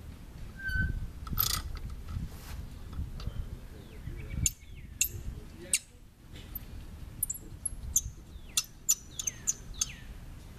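A bird giving short, sharp chirps with a quick falling pitch, many of them in the last few seconds. Under them, in the first couple of seconds, low knocks as a lug wrench works the wheel's lug nuts loose.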